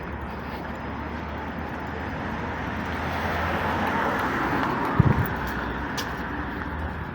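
A vehicle passing, its noise swelling to a peak about four seconds in and then fading, with a short thump about five seconds in.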